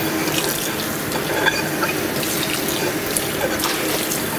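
Water running from a tap into a stainless steel sink, splashing steadily with small drips and clinks.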